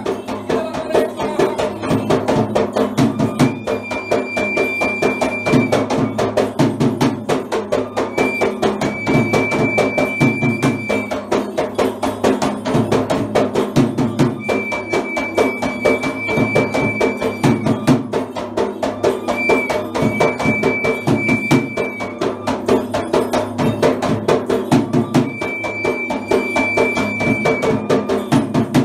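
Hand-beaten barrel drum (yak bera) playing a fast, dense rhythm. From about three seconds in, a small wooden pipe plays long, high held notes over it, five phrases, each note sliding up slightly as it starts.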